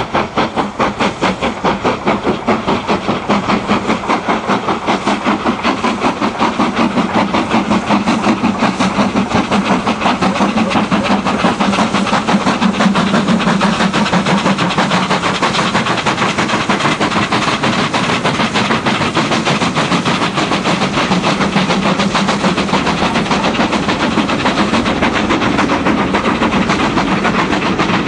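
Two Caprotti-valve-gear steam locomotives, BR Standard Class 5 No. 73129 and three-cylinder BR Standard Class 8 No. 71000, double-heading a passenger train as they pull away, with a rapid, continuous stream of exhaust beats and steam hiss. The beats grow louder over the first dozen seconds, then stay steady.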